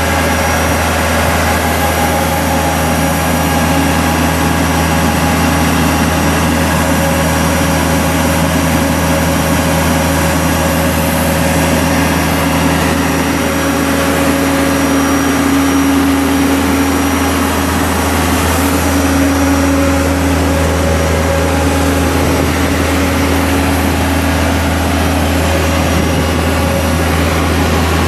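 Towable air compressor's diesel engine running steadily at a constant speed: a deep, even hum with a few fixed tones above it, unchanging in loudness.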